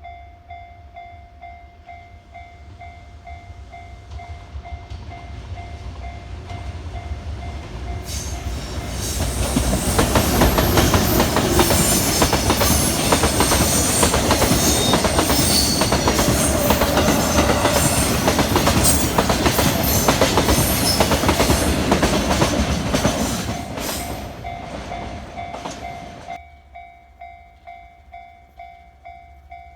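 Japanese level-crossing warning bell ringing in steady repeated strokes as a freight train approaches, then passes loudly for about fifteen seconds with a rapid clatter of wheels over the rail joints that drowns the bell. Near the end the train noise drops away suddenly and the bell is heard alone again.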